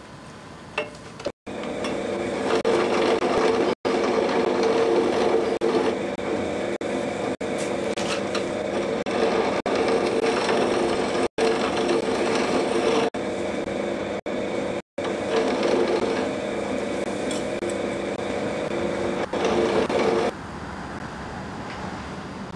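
Motor-driven workshop machine tool running steadily with a constant hum, broken by a few split-second dropouts. It starts about a second and a half in and stops near the end.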